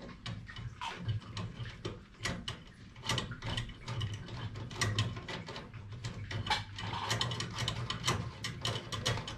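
Ratchet spanner clicking rapidly as it runs bolts in, likely fastening castor wheels to a tool chest's base, over a low steady hum.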